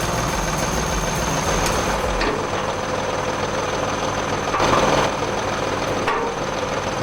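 Engine of a firewood-processing machine running steadily. Its deep low rumble drops away about two seconds in, and there is a brief louder noisy burst a little past halfway.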